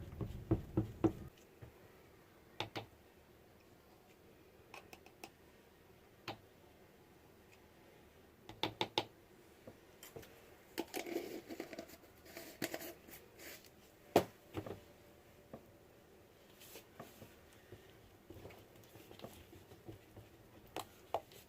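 Scattered light clicks and taps of plastic containers and utensils being handled, with a soft squishing stir or pour of soap batter around the middle; one sharper click a little after halfway.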